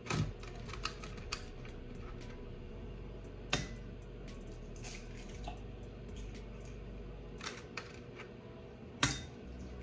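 Eggs being cracked on the rim of a mixing bowl: two sharp knocks about five and a half seconds apart, among a few lighter clicks of handling.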